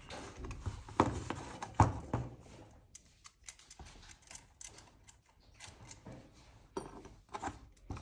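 Light metallic clicks, taps and scrapes of an Allen key working loosened chainring bolts out of an aluminium Stronglight crankset, with a sharper knock a little under two seconds in.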